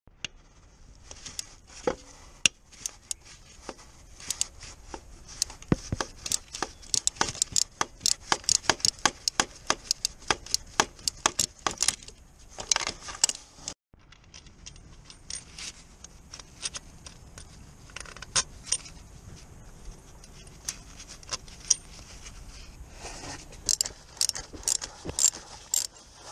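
Hand ratchet wrench clicking in quick runs of sharp metallic ticks while a starter motor's mounting bolts are worked loose, with light clinks of metal. The clicking stops about halfway and starts again near the end.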